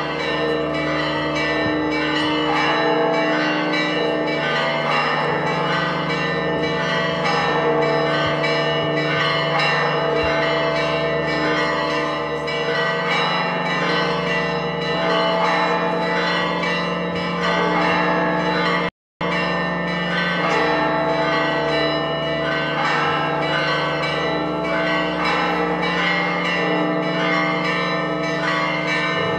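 Church bells of the Church of the Holy Sepulchre ringing together in a fast, continuous peal of overlapping strokes. The sound drops out for a moment about two-thirds of the way through.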